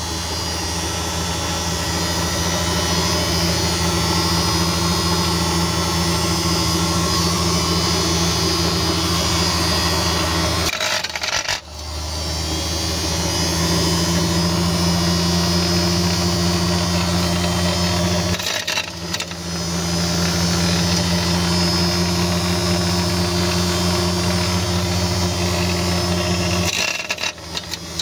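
Electric nut-splitter's motor and rotating splitting shaft running steadily with a hum, cracking pine nut shells as they pass through. The sound breaks off briefly three times, then carries on unchanged.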